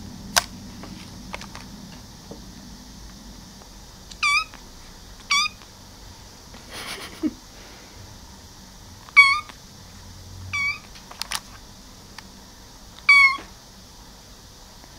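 Young kitten mewing: five short, high-pitched mews spaced a second or more apart. Two sharp clicks come through, one near the start and one about two-thirds of the way in.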